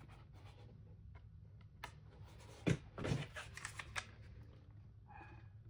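Cardboard box and a hot glue gun being handled on a worktable: a few light knocks, taps and scrapes, the loudest about two and a half to three seconds in, over a low steady hum.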